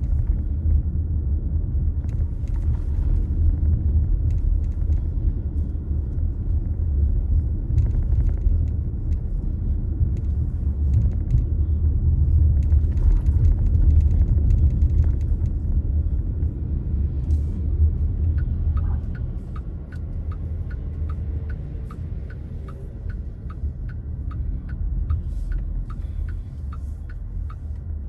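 Low, steady road and engine rumble inside a moving car, easing a little about two-thirds of the way through. From then on an even ticking, about two ticks a second, which is typical of the turn-signal indicator clicking.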